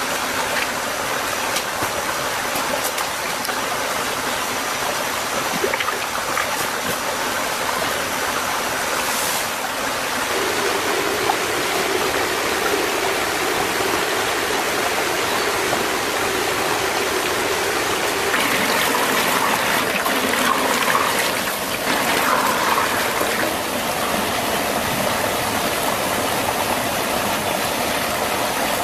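Shallow rocky stream running over stones and a small cascade in a steady rush, with a few faint knocks over it.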